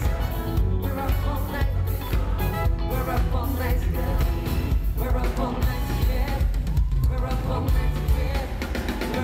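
Live pop music: a five-man vocal harmony group singing into microphones over a band with a steady drum beat, heard from the audience in a concert hall.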